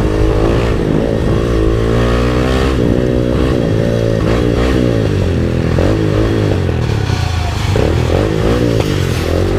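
MotorStar Explore 250 v2 motorcycle on its stock exhaust, revved over and over, the engine note rising and falling many times.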